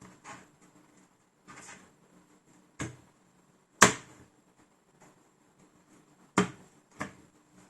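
Sharp clicks and knocks of a laptop and small tools being handled during a RAM replacement. There are four distinct knocks: the loudest is about four seconds in, and a close pair comes near the end. Softer rustling comes in the first two seconds.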